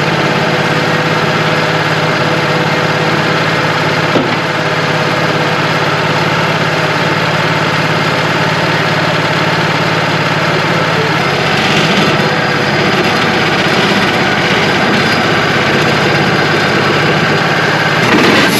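Wood-Mizer LT35 portable sawmill running steadily, its engine and bandsaw working through a white pine log. The sound grows a little louder and brighter about twelve seconds in.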